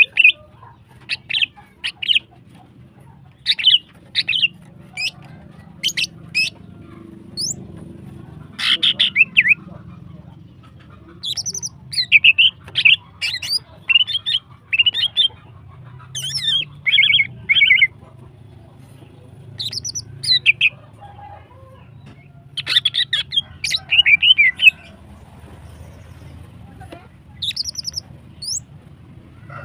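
Female greater green leafbird (cucak hijau) in breeding condition, calling in quick runs of sharp chirps and short trills. The calls come in groups of a second or two with pauses between, over a faint low hum.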